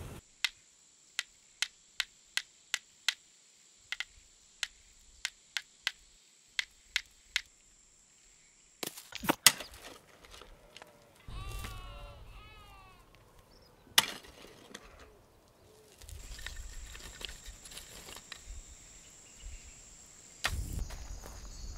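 Footsteps in leather sandals on dry ground, a sharp click about twice a second for some eight seconds. Then come a few heavy blows of a hoe into hard earth, with brief bird chirps among them, over a faint steady high insect drone.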